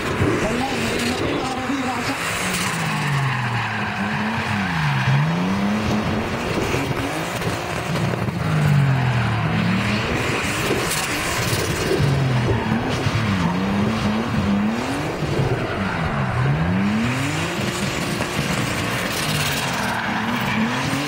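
BMW E30 turbo drifting: its engine revs rise and fall again and again as the throttle is worked, over tyres skidding and squealing on the tarmac.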